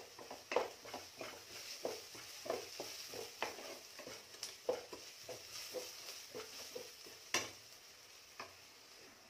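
A wooden spatula stirring and scraping sautéed onions and spices in a non-stick kadai, over a light steady sizzle of oil. The strokes come about twice a second, with one sharper scrape a little past seven seconds in, and thin out near the end.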